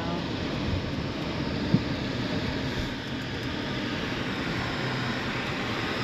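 Steady road noise heard inside a moving car: tyres hissing on wet pavement over a low engine hum, with one small click a little under two seconds in.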